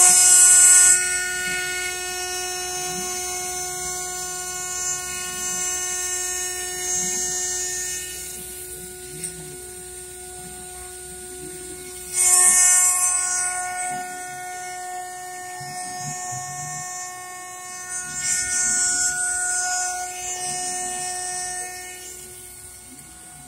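CNC mill end mill cutting a pocket into a 3/4-inch-thick metal disk under flood coolant, with the stepper-driven axes and spindle making a steady whine of several pitched tones. Louder, harsher screeching stretches come at the start, about halfway, and again a few seconds later. The sound eases off near the end.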